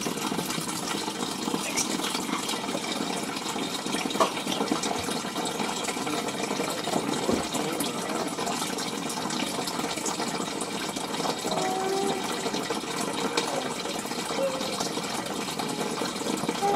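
Small aquarium filter pouring water back into the tank: a steady splashing rush of water, with a single sharp click about four seconds in.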